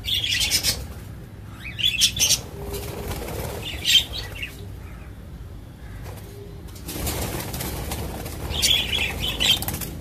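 Cockatiels flapping their wings in a wire cage, in separate flurries: one at the start, one about two seconds in, a short one about four seconds in, and a longer one near the end.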